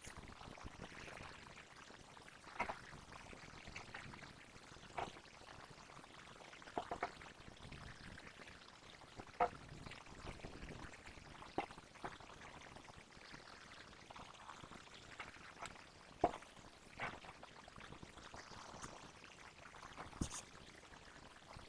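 Homemade slime being worked, giving scattered small wet clicks and pops every second or two over a faint hiss.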